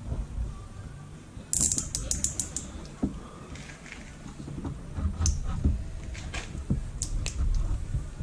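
Mechanical clicking and rattling of hand tools or small parts being worked, with a quick run of about six sharp clicks around a second and a half in, then scattered single clicks.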